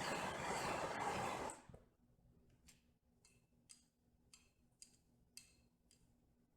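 A steady rushing noise from the heat source warming the steel tamper for its oil quench stops abruptly about one and a half seconds in. Then come faint, sharp ticks about twice a second.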